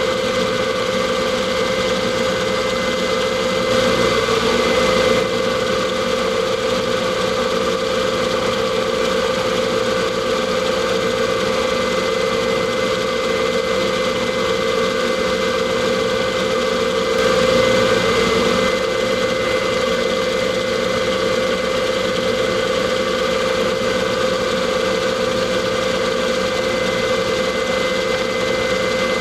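Metal lathe running steadily: an even motor hum with a constant whine, swelling slightly twice, about four and seventeen seconds in.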